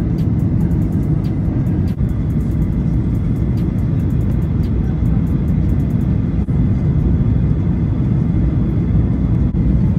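Airliner cabin noise heard from a window seat: a steady low rumble of jet engines and rushing air as the plane descends on approach with its flaps extended. Faint high ticks come through in the first few seconds.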